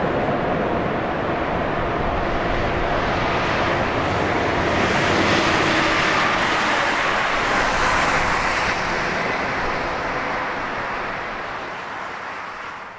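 Steady rush of the Fraser River's rapids mixed with the receding rumble of a CP Rail empty potash unit train. The sound swells in the middle, then fades out near the end.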